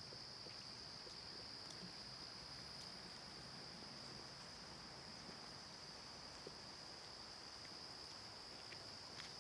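Faint, steady insect chorus: one unbroken high-pitched trill that holds at an even level, with a couple of faint clicks near the end.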